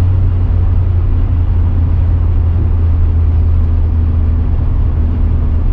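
Steady low drone of a BMW X6 M50d's N57 three-litre straight-six diesel engine and road noise, heard inside the cabin while driving at light load.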